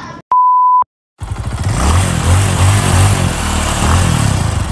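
A short steady electronic beep, then after a brief gap a loud motorcycle engine running for about four seconds, its low pitch rising and falling a little.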